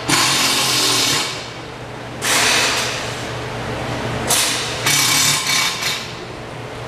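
Bare motorcycle rear rim, from a 1998 Honda Shadow VT750, spinning on a wheel stand. It gives a hissing rush in four bursts of about a second or less each, over a steady low hum.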